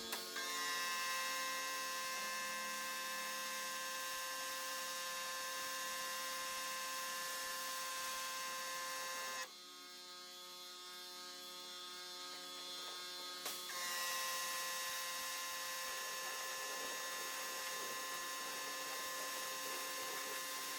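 Pressure washer running with a steady hum and hiss. The hiss drops away for about four seconds midway, then comes back.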